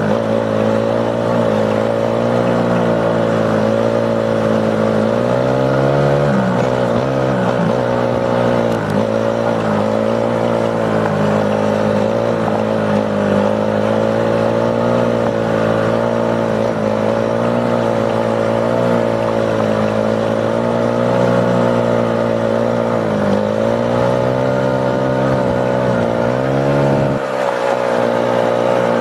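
ATV engine running under way, its pitch dipping and rising again and again as the throttle is eased and opened.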